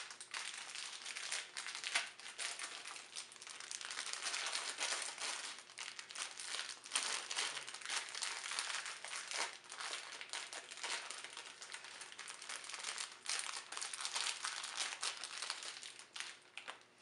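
Steady crinkling and rustling, full of small crackles, from gloved hands working over small hydraulic-pump parts.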